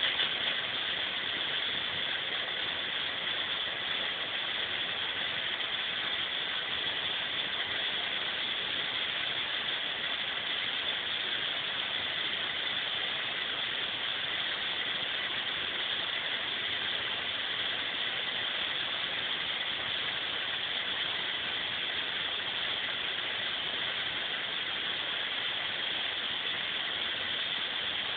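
Fog machine running, a steady, even hiss that does not change.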